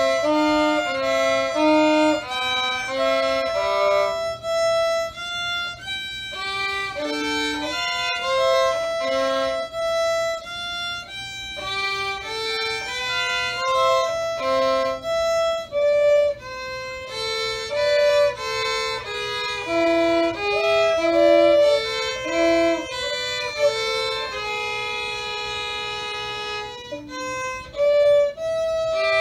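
Two violins playing a duet, the parts often sounding together, with the melody moving in short stepped notes.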